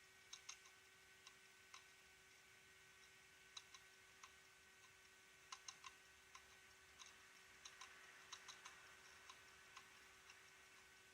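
Failing hard disk drive clicking: sharp, irregular ticks, some single and some in quick clusters of two or three, over a faint steady hum. The clicking goes with slow reads, a climbing hardware ECC error count and a fast-rising reallocated sector count: the drive is failing.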